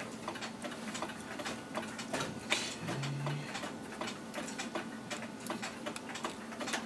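Light ticking of clockwork running in the workshop, a steady stream of small clicks, over the faint rub of a cloth wiping oil off a clock mainspring. A brief low hum comes about three seconds in.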